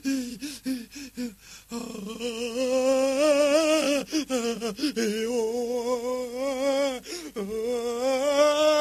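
A voice humming a melody in long held notes with a wavering vibrato, after a few short, choppy vocal sounds at the start.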